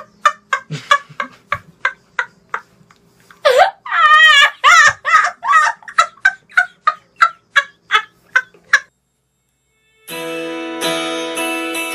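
A boy laughing loudly and helplessly in rapid high-pitched bursts, about three a second, with a longer wavering cackle a few seconds in; it breaks off about nine seconds in. Acoustic guitar music starts about a second later.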